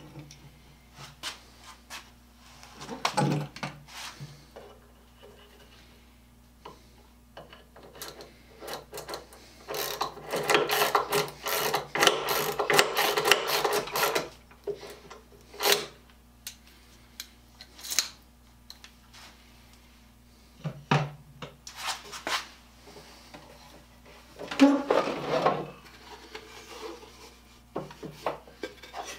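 A spiral-ratchet hand push tool pumped down into a wooden board in a dense run of strokes lasting about four seconds. Scattered knocks and clatter of wood and tools on a workbench come before and after it.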